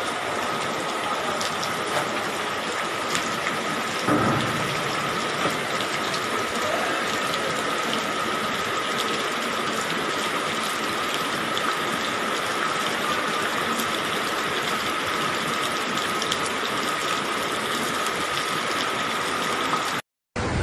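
Steady rush of flowing floodwater, with a constant high whine running through it; it cuts off near the end.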